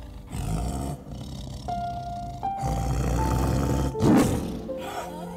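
An animal roaring in several heavy, low calls, the loudest just after four seconds in, over background music whose held notes step upward.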